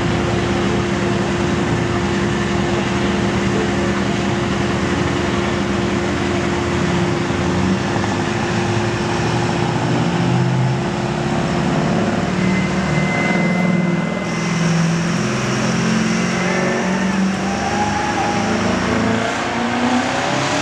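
Pro stock diesel pickup truck engine running hard under load while pulling the weight sled. The sound is loud and steady at first, and the engine note wavers and shifts from about halfway through.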